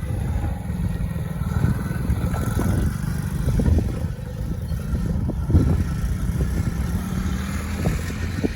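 Tao Tao ATV's small four-stroke engine running, with a continuous low engine hum and a few light knocks: the engine runs properly after its new carburetor, ignition coil, CDI and spark plug.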